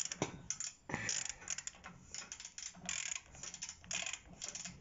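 Ratchet clicking in repeated short bursts as a Proxxon rotating-handle ratchet is worked against a tightened bolt. Its twist-handle drive is slipping: the lower end spins while the head does not turn the bolt.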